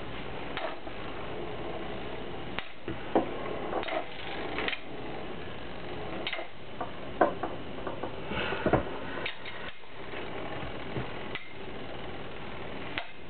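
Rock Leon and Earth Eagle Beyblade spinning tops whirring as they circle a plastic stadium, with scattered sharp metal clacks as they collide, the loudest a little past seven seconds and near nine seconds in.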